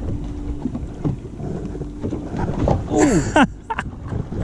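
Low wind rumble on the microphone aboard a small boat, with a faint steady hum under it for the first couple of seconds. About three seconds in, a man gives two short falling exclamations.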